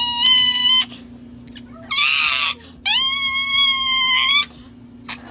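Chihuahua screaming while its claws are clipped: high-pitched, drawn-out shrieks. A short one comes at the start, a harsh rasping screech about two seconds in, and a long wail from about three to four and a half seconds.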